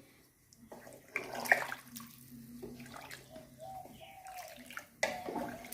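Water being poured from a tumbler into a pressure cooker of rice, chicken and coconut milk, splashing into the liquid. One pour starts about a second in and another starts near the end.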